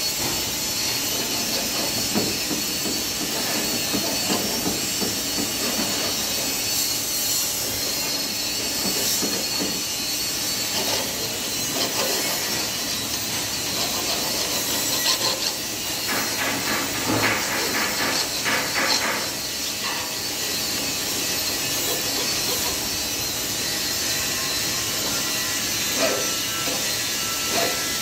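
Steady hiss of workshop machinery, with scattered knocks and scrapes of hand tools working on a twin-lobe (Roots) compressor. A little past the middle comes a quick run of sharp strokes, about three a second.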